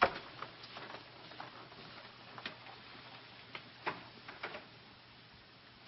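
Light, scattered clicks and knocks at uneven intervals, about a dozen in all, over a faint steady hum.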